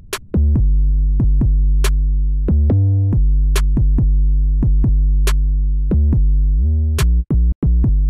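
Electronic trap beat: deep bass notes that slide in pitch, under sparse sharp drum-machine hits, starting about half a second in. Near the end the beat cuts out twice briefly before the bass rings on.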